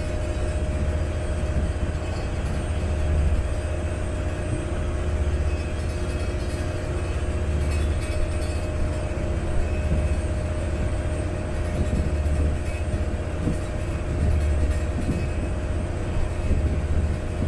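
Vaporetto water bus under way: its diesel engine gives a steady low drone that swells and eases slightly, with a steady hum above it and an even hiss of water and wind.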